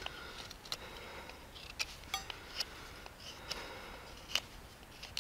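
Knife whittling the wooden bow-drill spindle, short irregular shaving cuts and scrapes. The spindle's top end is being pointed to cut friction where it was smoking in the handhold.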